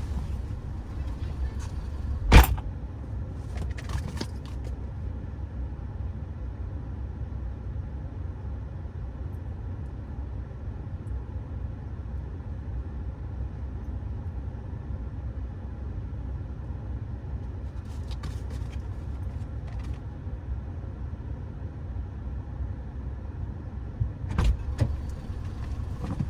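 Subaru Baja's flat-four engine and road drone heard from inside the cabin, a steady low hum, with one sharp click about two seconds in and a few faint rustles later.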